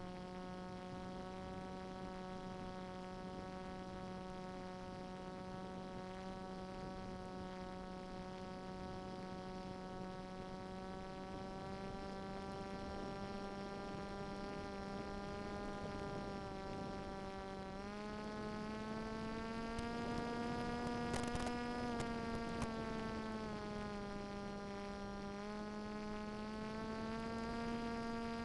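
Brushless outrunner motor and propeller of an electric flying wing in flight: a steady buzzing hum whose pitch steps up about two-thirds of the way through, wavers, and steps up again near the end as the throttle changes. A brief crackle comes a little after the first pitch rise.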